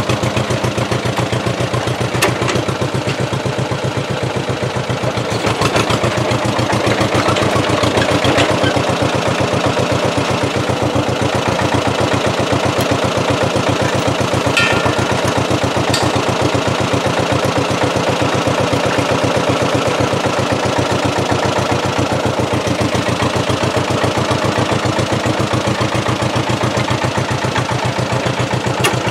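Bulldozer engine running steadily with an even, rapid beat.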